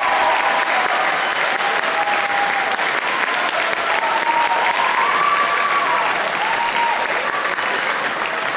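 Audience applauding steadily after a tango performance, with a few voices calling out over the clapping.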